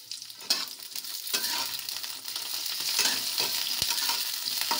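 Pointed gourd pieces, garlic and green chillies sizzling in hot oil in a kadhai, stirred with a steel spatula that clicks and scrapes against the pan. The sizzle grows louder a little over a second in.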